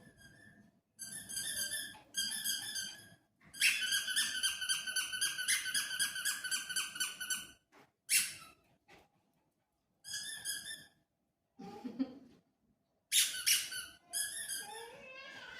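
Rubber squeaky dog toy squeezed again and again in quick bursts of high squeaks. The longest run lasts about four seconds, and short silent pauses separate the bursts.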